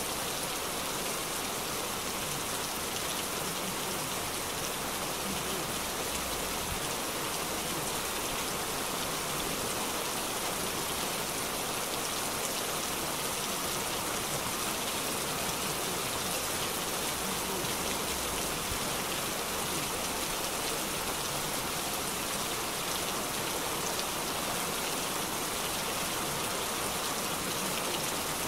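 Heavy rain pouring steadily onto wet pavement, an even, unbroken hiss.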